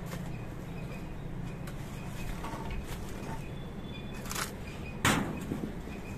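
A sharp knock on the wooden handloom frame about five seconds in, with a few lighter clicks and faint high chirps in the background.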